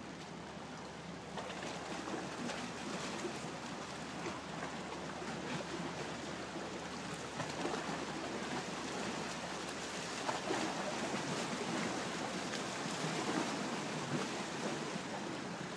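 Steady rush of churning water from the paddle wheels of the paddle steamer Vevey as it comes in, slowly growing louder, with rain pattering.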